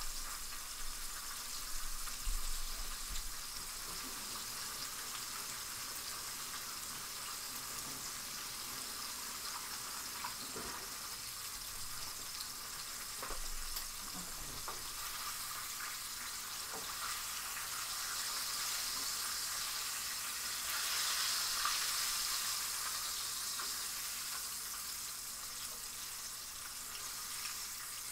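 Flour-coated chicken tenderloins frying in a pan of canola oil: a steady sizzle that swells louder about two-thirds of the way through, with a few light knocks early on.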